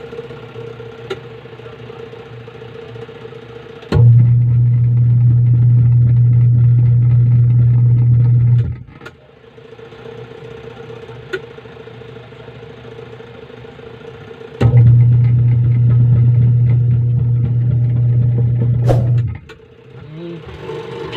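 Washing machine motor running in two bursts of about four to five seconds each. Each burst is a loud, steady low drone that starts and stops abruptly, with a quieter steady hum and a few clicks between. The machine is still noisy, a fault the owner had put down to the gearbox.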